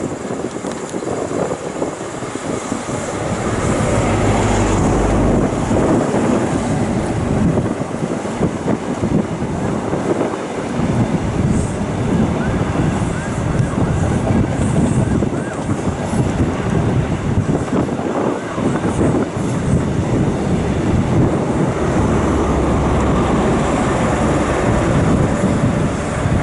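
InterCity 125 High Speed Train passing slowly with its Class 43 power cars' diesel engines at idle: a low engine hum as the leading power car goes by about four seconds in, then a steady rumble of the coaches' wheels on the rails, and the rear power car's engine hum growing near the end.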